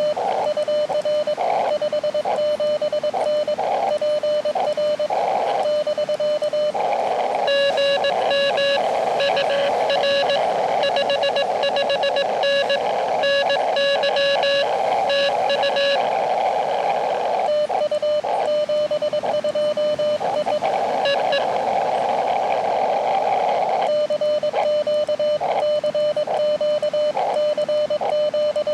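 Morse code from an Elecraft KX2 transceiver: a single steady tone keyed on and off in dots and dashes over the receiver's hiss. Twice the keying stops and only the hiss is heard.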